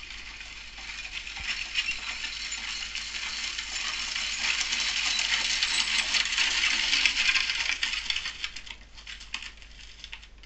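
Sound-effect recording of a horse and carriage arriving: a dense clatter of hooves and wheels grows louder to a peak, then fades out over the last couple of seconds.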